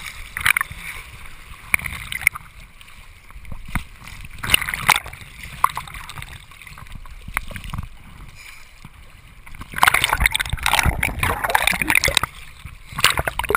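Water splashing and spray from a kiteboard riding across choppy water, with wind buffeting the camera microphone, coming in uneven surges; the loudest stretch runs from about ten to twelve seconds in.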